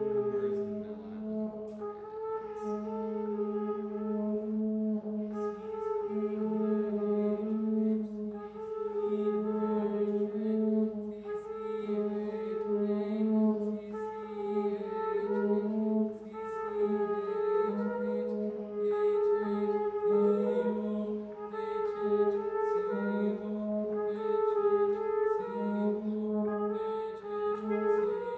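Contemporary chamber music for trumpet, trombone and bass clarinet, with long sustained notes over a steady low drone. The upper notes shift every second or two.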